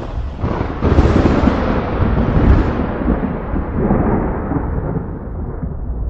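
Thunder rumbling: a fresh peal breaks about a second in and rolls on, growing duller as its higher crackle fades away.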